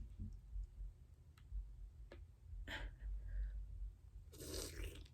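Faint scattered clicks and taps from handling food and utensils while picking up a potato from a seafood boil, with a short breathy exhale about four seconds in.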